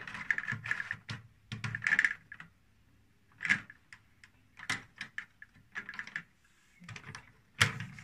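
Clusters of small plastic clicks and taps as the rubber emergency drain hose of a front-loading washing machine is pushed back into its plastic clip behind the bottom service flap, with two short pauses.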